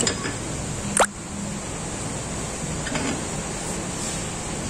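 A few sharp metal knocks and clinks, the loudest about a second in, as a drill chuck holding a twist drill is fitted into a lathe's tailstock. Under them runs the steady noise of heavy rain.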